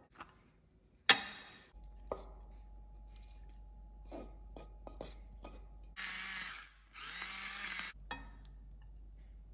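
Kitchen preparation sounds: a sharp knock, a few light clicks, then two short whirring bursts of about a second each from a small kitchen appliance.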